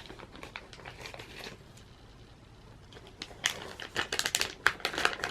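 Plastic bag crinkling as it is opened and handled, in irregular sharp crackles that turn louder and denser about three and a half seconds in.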